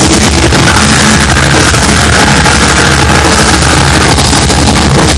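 Loud live rock band playing: distorted electric guitars, bass and drums held in a dense, sustained wash, heard from within the crowd.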